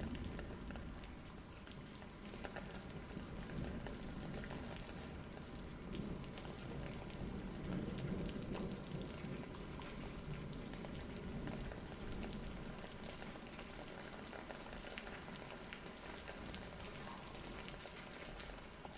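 Rain ambience: a steady patter of rain with fine crackling drops, easing slightly quieter toward the end.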